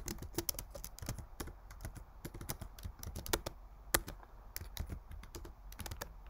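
Computer keyboard typing: irregular keystroke clicks, with one harder strike about four seconds in.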